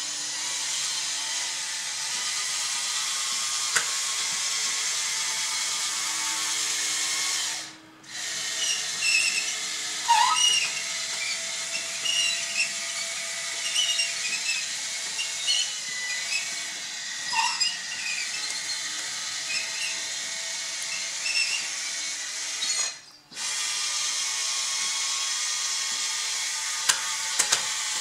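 Electric drive motors and gearboxes of an RC-converted Bruder CAT D11 bulldozer model whining steadily as it drives and pushes. The whine cuts out sharply twice, about 8 seconds in and again near 23 seconds, and between the two stops there are irregular short whirs and squeaks.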